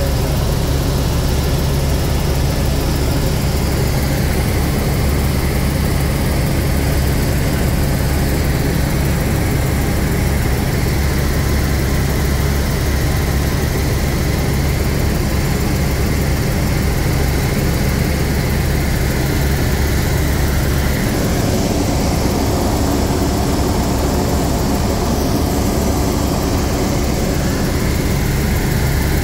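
Ecureuil H125 (AS350 B3) helicopter in flight, heard inside the cockpit: its Arriel 2B turbine and main rotor make a steady, loud drone with a strong low hum. The low hum eases slightly about two-thirds of the way through.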